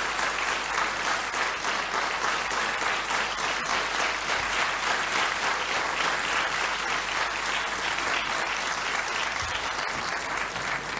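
Live theatre audience applauding steadily, a dense crackle of many hands clapping, heard from an old cassette recording; it eases slightly near the end.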